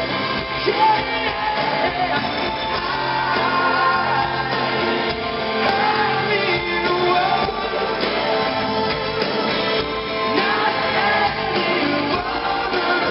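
Live pop-rock band playing with guitars, drums and singing, heard in a large arena.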